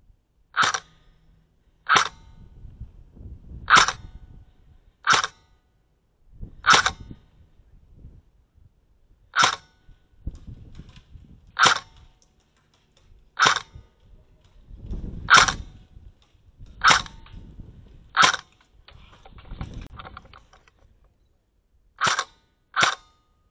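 Airsoft rifle firing single shots: about thirteen sharp cracks spaced irregularly a second or two apart, with a quick pair near the end, and low rumbling noise between many of them.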